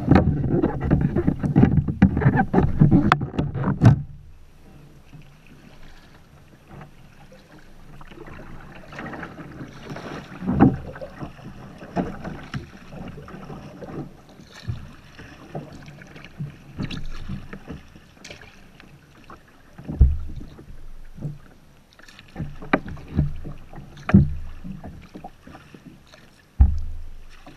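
Water splashing against a kayak's hull with paddle strokes, loud and dense for about the first four seconds, then quieter, with a few sharp low thumps.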